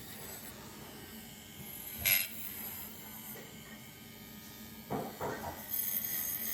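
A single sharp clink with a short ring, then two duller knocks a few seconds later. Background music with jingling starts near the end.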